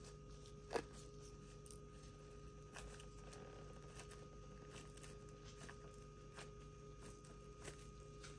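Faint kitchen handling sounds: light rustles and small clicks, with one sharper click about a second in, over a steady low hum.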